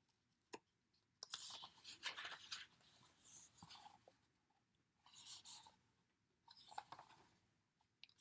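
Faint rustling of paper as album pages are turned and handled, in four or five short bursts with a single sharp click about half a second in.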